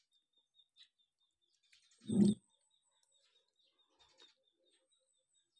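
Eating sounds of a fork working spaghetti on a plate: faint scattered clicks and a short low thump about two seconds in. A faint, high-pitched chirping runs on in the background.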